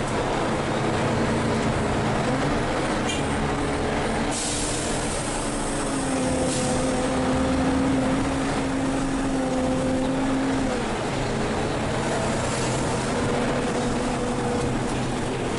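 Volvo B12M bi-articulated bus's diesel engine and drivetrain heard from on board while driving, a steady rumble with a pitched drive note that climbs as the bus accelerates, holds, and drops about eleven seconds in. A short hiss about four seconds in.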